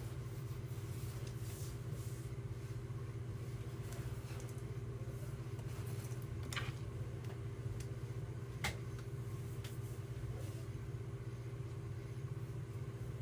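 Steady low hum of background noise, with a couple of brief rustles of a denim jacket being handled, about halfway through.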